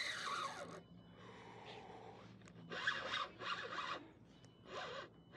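Fishing reel cranked in short rasping bursts while a large red drum is played on the line.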